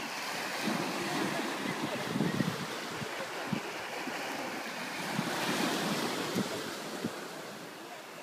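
Small surf breaking and washing up a sandy shore, swelling twice as waves run in, with gusts of wind buffeting the microphone.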